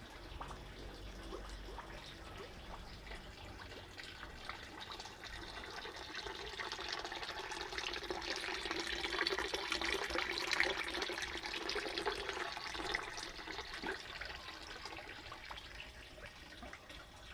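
Water splashing and trickling out of the line of a refrigerator compressor rigged as a water pump, drawing water from a tank. The flow swells louder from about six seconds in and eases off again near the end.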